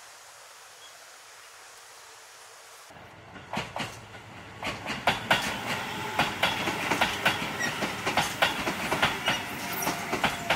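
A faint steady hiss, then about three seconds in a Hakone Tozan Railway train passing close by, its wheels clattering over the rails with many sharp clicks and knocks.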